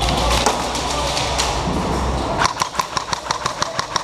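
A low steady rumble, then from about two and a half seconds in a rapid run of sharp cracks from airsoft gun fire, about six or seven a second.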